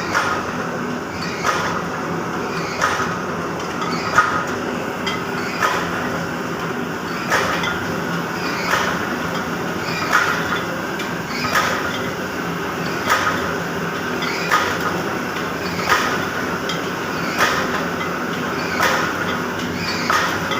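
A 50-ton up-stroke friction screw forging press working brass: a steady machine hum with a sharp clanking knock at each press stroke, about one every one and a half seconds.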